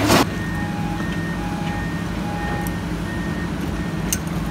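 Heavy construction machinery running steadily, with a warning alarm beeping in alternating high and low tones, about two beeps a second. A brief loud burst of noise comes at the very start.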